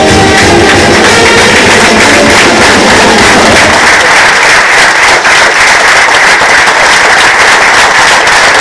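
Loud audience applause, with music playing over it that fades out about three and a half seconds in while the clapping goes on.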